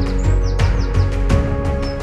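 Background music with a steady beat and held chords, with short high falling chirps over it.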